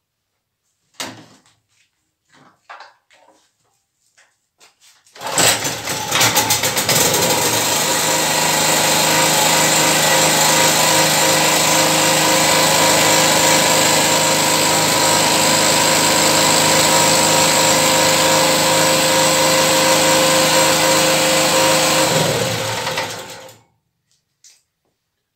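Zunder Professional three-phase petrol generator: a few clicks and knocks, then the engine catches about five seconds in and runs at a steady speed for about seventeen seconds, before it is switched off and runs down near the end.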